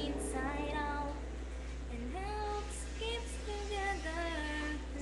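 A girl's voice singing a slow melody, notes held and sliding between pitches.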